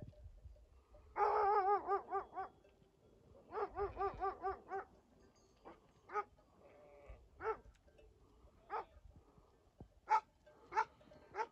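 A sheep bleats twice in long quavering calls, then a shepherd dog barks repeatedly, single barks a second or so apart that come quicker near the end, in alarm at an approaching stranger.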